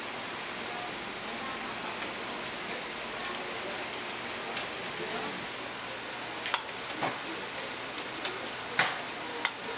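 Tteokgalbi (minced-meat patties) sizzling on a flat metal griddle. In the second half a metal spatula taps and scrapes against the griddle plate several times.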